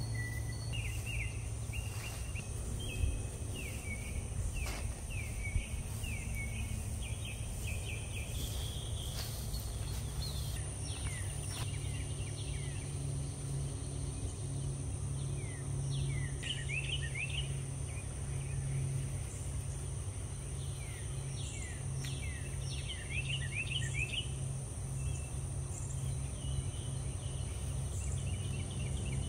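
Outdoor birdsong and insects: a bird sings repeated runs of quick falling chirps over a steady high insect drone and a steady low hum. Two brief knocks come about three and five and a half seconds in.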